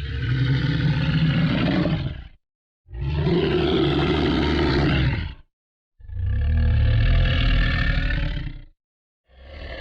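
Monster growl sound effect: three deep, rough growls of about two and a half seconds each, separated by short silences, with a fourth starting near the end.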